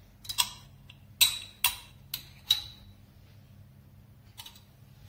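A metal spoon clinking against a glass jar and a bowl as cream cheese is scooped out and tapped off: about five sharp, ringing clinks in the first two and a half seconds, then a faint one near the end.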